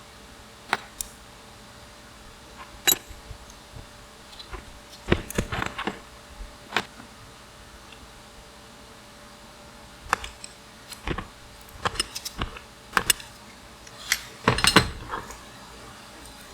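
Metal bicycle parts and hand tools clinking and knocking as the bike is taken apart: irregular sharp clicks, some in quick clusters, the busiest run near the end.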